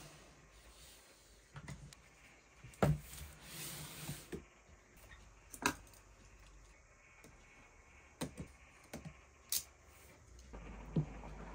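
Desk-handling sounds: a keyboard moved aside and a large cardboard box set down and handled, giving about half a dozen sharp knocks and taps with a short rustle about three seconds in.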